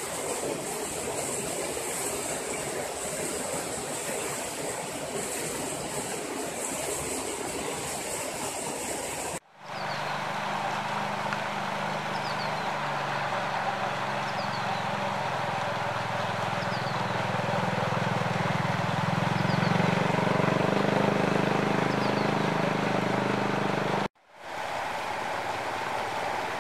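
Outdoor ambience of steady hiss with a high buzz that breaks off suddenly, giving way to a steady low motor hum that swells and then fades. Faint short chirps sound now and then over the hum before it cuts off and the hiss returns.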